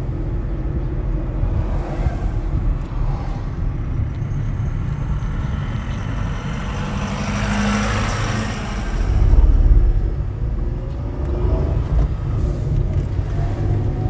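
Car driving on a city road: steady engine, tyre and wind rumble. A truck passes close alongside about eight seconds in, a swell of hiss that rises and fades, followed by a louder deep rumble.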